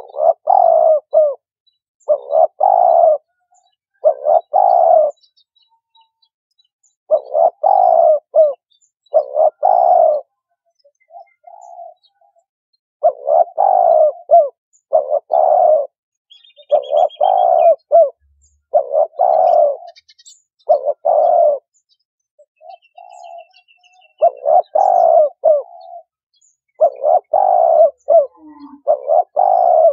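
Spotted dove cooing: a repeated song phrase of about a second, given over and over in runs with short pauses between. This is the call played as a lure to draw in doves for trapping.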